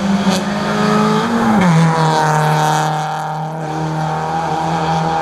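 Rally car engine running at high revs during a hill climb. Its pitch drops once, about a second and a half in, then holds steady.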